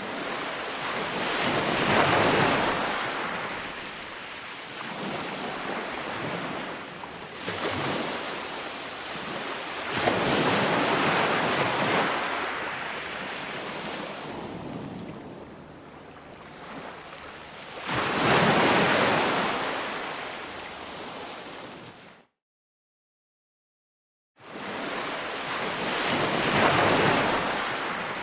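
Ocean surf: waves breaking and washing in, swelling and fading in surges every several seconds. The sound cuts out to dead silence for about two seconds near the end, then the surf returns.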